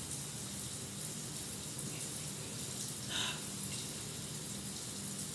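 Shower running in a small bathroom: a steady hiss of water, with a low steady hum beneath it and a brief higher sound about three seconds in.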